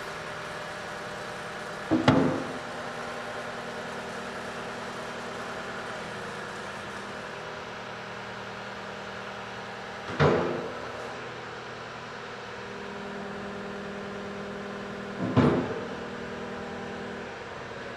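Compact equipment diesel engines running steadily while a track loader presses the excavator's arm down to lift its track, with a slight change in engine note about two-thirds of the way in. Three short, loud clunks sound, at about 2, 10 and 15 seconds.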